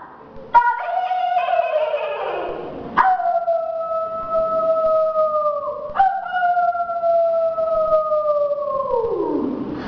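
Canine howling: three long held howls, starting about half a second, three and six seconds in, each dropping in pitch as it ends.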